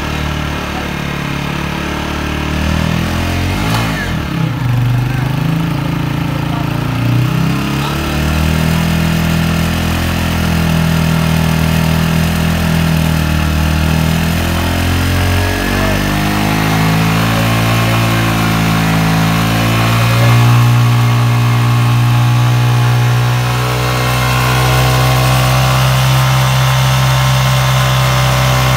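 Honda 125 motorcycle's single-cylinder four-stroke engine running under load, its rear wheel driving a roller and long shaft that turns a flour mill. Engine speed rises and falls over the first half, then holds steady.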